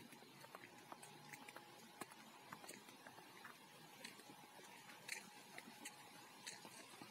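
Near silence with faint, irregular clicks and crackles of footsteps on a damp, leaf-strewn dirt path, over a faint steady high tone.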